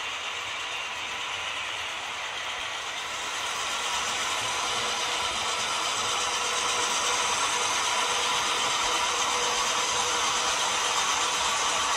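Model diesel train running on layout track: the locomotives' motors and gearing whir steadily with the clatter of the cars on the rails. It grows louder about four seconds in as the locomotives come closer.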